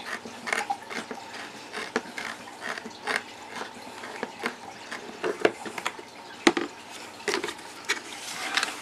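Hand deburring tool scraping around the edge of a drilled hole in a plastic tackle box lid, shaving off burrs in irregular strokes. Short sharp clicks and knocks come from the tool and the plastic, the loudest about six and a half seconds in.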